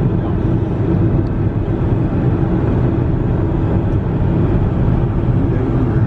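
Steady low rumble of a car driving at freeway speed, with tyre and engine noise heard from inside the cabin.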